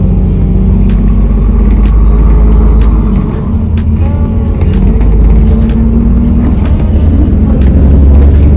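Interior of a bus pulling away slowly: a steady low engine and road rumble, with scattered sharp clicks and rattles.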